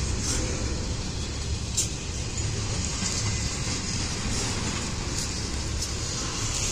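Intermodal freight train's well cars, loaded with containers and trailers, rolling slowly past: a steady rumble of steel wheels on the rails, with a few brief high clicks.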